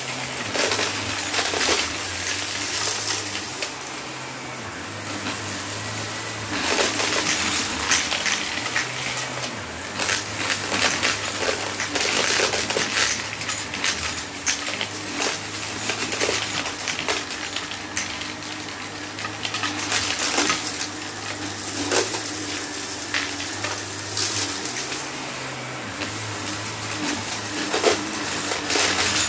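Upright vacuum cleaner running over a thick shag rug: a steady motor hum that shifts pitch a little now and then, under constant sharp crackling and clicking as crunchy debris hidden in the pile is sucked up.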